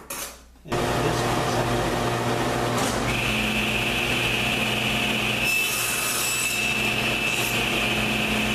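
Table saw switching on about a second in and running at a steady hum. From about three seconds in, a higher steady whine joins it as the blade cuts a strip of wood fed along the fence.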